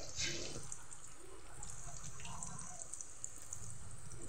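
Onion samosas deep-frying in hot oil: a steady sizzle with small scattered crackles from the bubbling oil.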